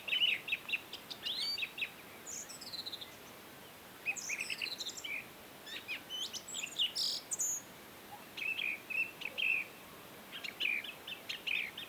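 Several songbirds singing together: quick chirps, trills and falling whistled notes in short phrases, with brief pauses between them, over a faint steady outdoor hiss.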